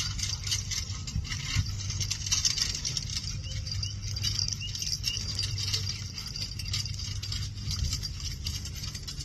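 Tandem pony carriage trotting past: light jingling and rattling from the harness and carriage, over a steady low hum, with a few faint high chirps midway.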